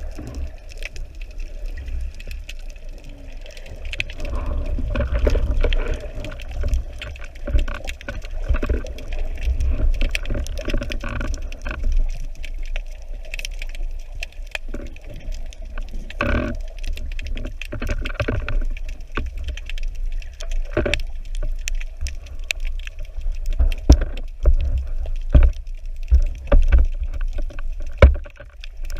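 Underwater sound picked up by a camera in its housing: a constant low rumble of moving water with gurgling and many scattered sharp clicks.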